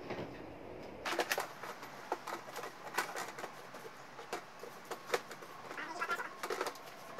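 Scattered knocks, clicks and rustles as a soft camera bag and gear are handled and packed into a hard plastic motorcycle top box. The sharpest knocks come about three and five seconds in.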